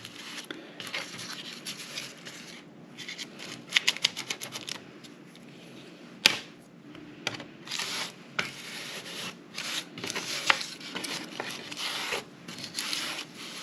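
Hands shaping and handling soft yeast donut dough on a work surface: intermittent rubbing, scraping and light rustling, with a single sharp tap about six seconds in.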